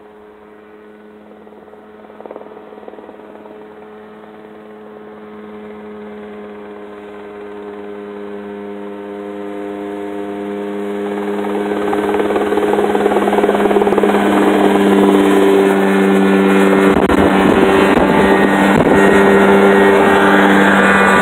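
Mosquito ultralight helicopter with a Rotax 503 DCDI two-stroke twin engine, its engine and rotor growing steadily louder for about the first twelve seconds as it flies in, then holding loud and steady as it hovers close by.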